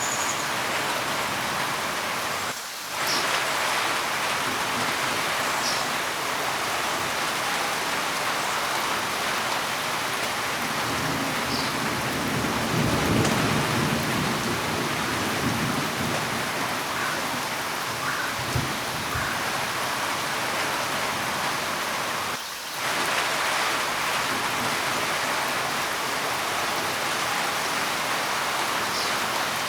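Steady heavy rain hissing, with a low rumble of thunder swelling and fading about halfway through. The rain drops away briefly twice, near the start and toward the end.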